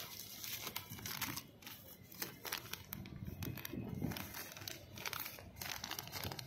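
Paper invoice and plastic courier mailer crinkling as hands pull the thin bill out of the mailer and unfold it: a run of irregular crackles.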